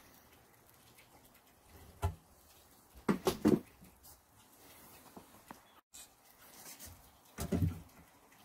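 Light knocks and a short clatter of a metal combination square and pencil being handled and set down on a wooden workbench and blank: one knock about two seconds in, a quick run of knocks a second later, and another near the end.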